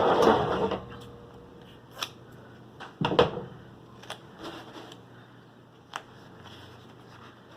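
Duct tape pulled off the roll in two short noisy bursts, one at the start and one about three seconds in, with a few sharp clicks and taps between them.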